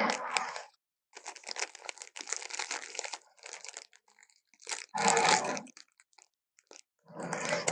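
Homemade Carnotaurus dinosaur sound effects: a run of harsh, rasping growl-like bursts with short pauses between them. The loudest come about five seconds in and near the end.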